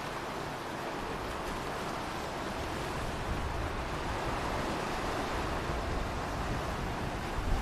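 Ocean waves washing steadily, a gentle swell that builds from about a second in.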